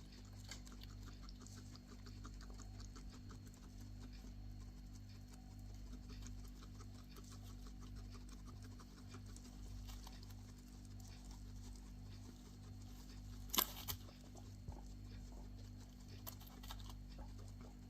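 A guinea pig making quick soft clicks, about four a second, then a short sharp cough in two quick parts about thirteen and a half seconds in.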